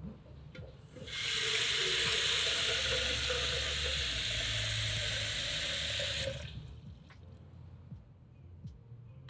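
Kitchen tap running into a watering can. The water comes on about a second in and shuts off sharply about five seconds later, with a faint tone inside the rush that rises in pitch as the can fills. A few faint light clicks follow.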